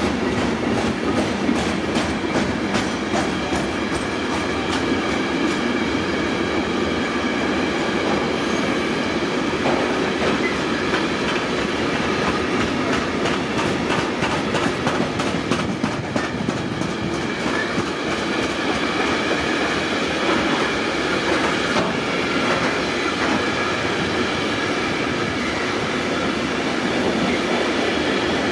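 A train passing close by, its wheels clattering over the rail joints in a steady run of clicks that is thickest in the first half.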